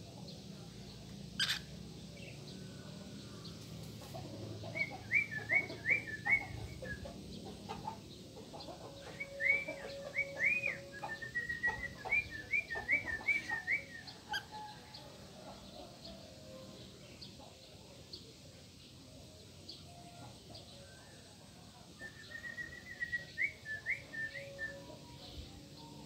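Lutino cockatiel whistling its song in three phrases of short, quick rising-and-falling whistle notes, with a long pause before the last phrase. A single sharp click comes about a second and a half in.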